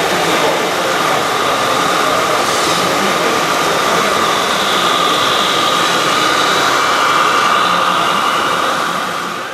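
Radio-controlled model trucks and construction machines running: a steady electric motor whine over constant mechanical noise, fading out at the end.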